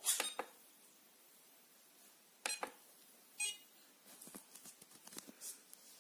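A Tesla RoboStar T60 robot vacuum's top button is pressed, giving a sharp double click. A second click follows about two and a half seconds in, then a short electronic beep from the robot about three and a half seconds in, its low-battery signal. A few faint clicks come near the end.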